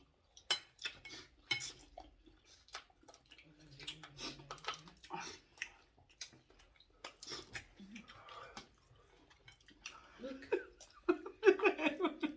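Spoons clinking against bowls and plates as people eat pepper soup, a scattered series of sharp clicks with some chewing.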